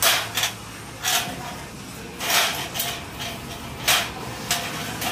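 Galvanized metal furring channel being folded by hand, giving a series of sharp metallic clicks and scrapes, about eight in all, one of them longer at about the middle.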